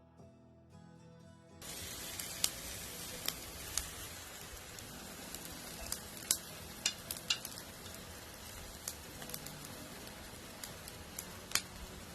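Jerk chicken pieces sizzling on a grill, a steady hiss broken by many sharp crackles and pops. The sizzling starts abruptly about a second and a half in, after soft music.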